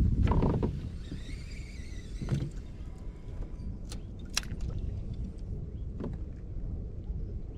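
Wind buffeting the microphone, loud for the first moment and then easing, over water slapping a plastic kayak's hull. A few sharp clicks and a knock on the boat come through, two of the clicks close together a little past the middle.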